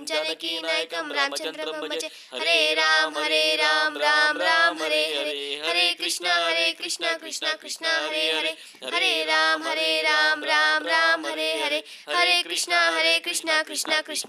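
A woman's voice singing a devotional hymn in long melodic phrases, with short breaths between lines.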